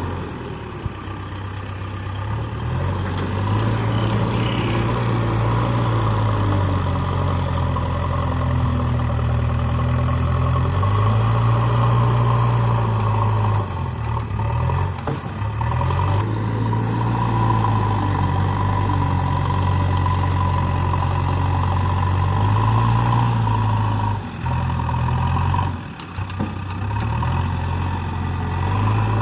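JCB backhoe loader's diesel engine running under load, its pitch sagging and picking up again over and over as load is put on and let off, with a steady whine over it. The machine is being load-tested after a repair.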